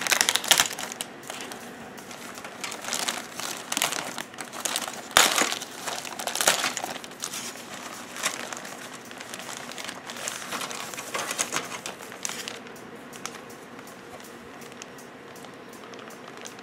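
Plastic bag holding model-kit sprues being opened and handled, crinkling for about twelve seconds, then quieter with only faint ticks.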